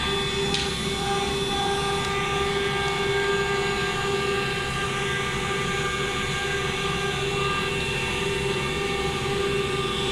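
CNC router spindle running with a steady whine of several held tones as the bit cuts aluminium composite panel.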